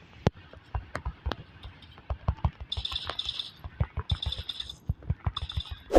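A high, pulsing electronic ringing tone comes in short bursts, three times from about halfway through, over a run of irregular knocks and clicks.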